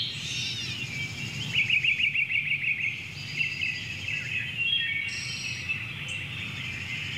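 Several birds singing and chirping together, with a fast trill about a second and a half in. A steady low hum runs underneath.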